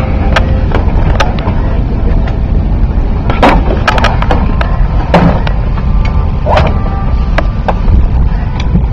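Steady low rumble inside an Airbus A380's cabin, with several short knocks and rustles, the clearest between about three and seven seconds in.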